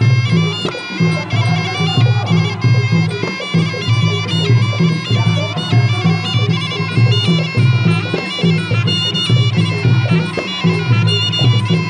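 Traditional Khmer boxing fight music: a sralai, the shrill Khmer oboe, plays a continuous, ornamented melody over a steady, repeating drum beat.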